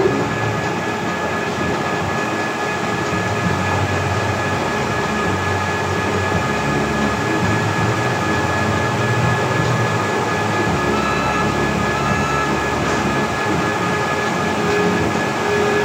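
A workshop machine's electric motor running steadily at speed, a continuous mechanical noise with a constant high whine.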